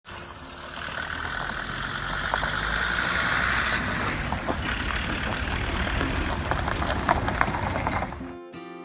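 An engine running steadily, with scattered sharp clicks and knocks over it, cutting off suddenly near the end as acoustic guitar music begins.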